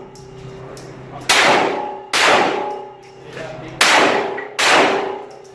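Four pistol shots in two pairs, a little under a second apart within each pair, each with a long echoing tail and steel targets ringing faintly after the hits.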